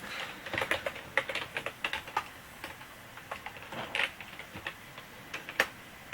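Typing on a computer keyboard: a quick run of keystrokes for the first two seconds or so, then scattered taps, with one sharper click near the end.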